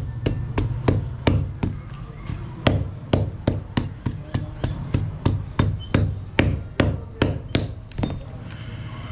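A cobbler's hand hammer beats a sandal's tyre-rubber sole in quick strikes, about three a second, stopping about eight seconds in. A low steady hum runs underneath.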